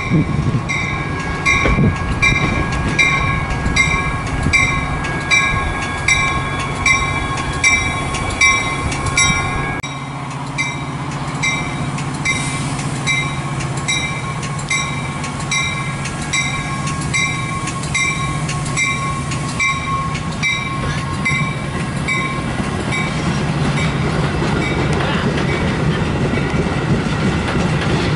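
A warning bell dinging about one and a half times a second, stopping about 22 seconds in. Under it a Metra bilevel commuter train rolls past, its cars rumbling and clacking over the rails, growing louder near the end as the cars pass close.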